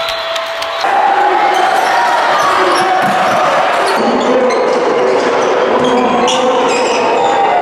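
Basketball game sound in a gym: a ball bouncing on the hardwood court and sneakers squeaking over a steady hubbub of crowd voices. It gets louder about a second in.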